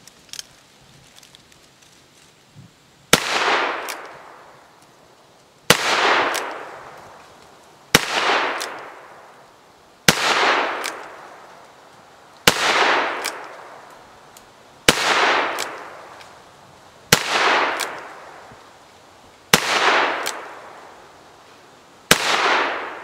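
Ruger Single-Nine .22 Magnum (.22 WMR) single-action revolver fired nine times, slow and evenly, about one shot every two and a half seconds. Each sharp crack is followed by an echo that fades over about a second.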